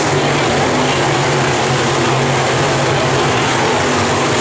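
Several dirt-track modified race cars' engines running hard as the field races around the oval, a loud, steady, droning blend of engines.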